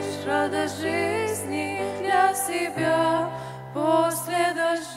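A girls' vocal duet singing a Russian Christian song, accompanied by a grand piano.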